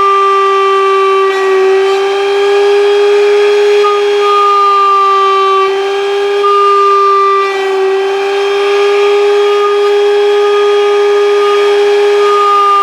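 Router spindle of an edge-milling machine cutting a groove into the face of a sign letter: a loud, steady high whine whose pitch dips slightly now and then as the cutter takes the load.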